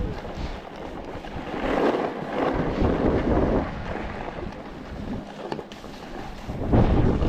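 Strong gusting wind buffeting the microphone, a rough rush of noise that swells twice, once for a couple of seconds and again near the end.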